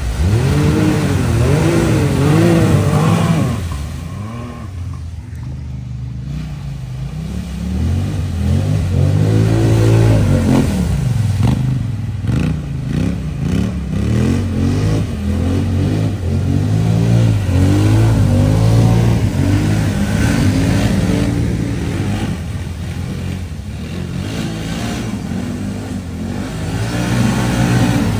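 Off-road vehicle engines, a Can-Am side-by-side and then quad bikes, revving hard, their pitch rising and falling again and again as they drive through deep floodwater, with water splashing.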